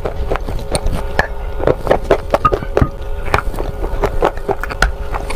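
Close-up crunching and chewing of dry shale stone: an irregular run of sharp, crisp cracks, several a second.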